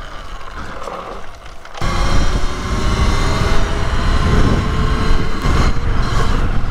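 Talaria Sting electric dirt bike being ridden: rushing wind and tyre noise with a faint steady whine from the electric motor, getting suddenly much louder about two seconds in.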